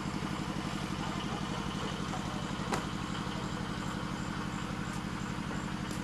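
A small engine running steadily at idle with an even, rapid pulse, and a single click about two and a half seconds in.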